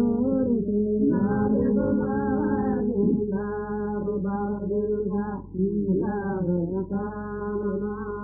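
Voices chanting a devotional Mawlid praise song for the Prophet in long, held, gliding notes. The sound is muffled, with no high end.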